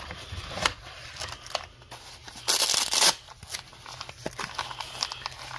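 Knife packaging handled by hand: rustling and small clicks of a cardboard box, its insert and a cloth pouch with plastic wrap. A louder rustle lasting about half a second comes about two and a half seconds in.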